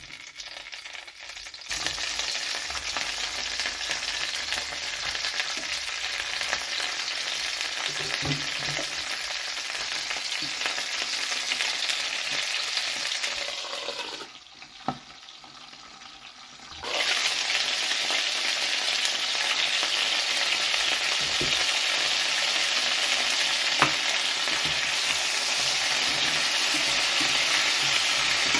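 Chopped bell peppers frying in a little oil in a pan, a steady sizzle that starts about two seconds in as they hit the hot oil. It drops away briefly about halfway through, then comes back louder, with a spatula stirring the peppers near the end.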